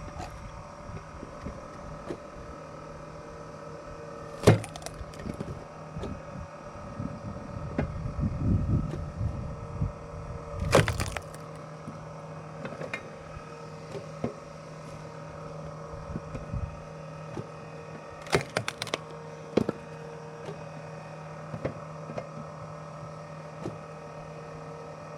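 Firewood being split with an axe: a few sharp, separate wooden cracks. The loudest comes about four and a half seconds in, another near eleven seconds, and two or three close together around eighteen to twenty seconds, over a steady low hum.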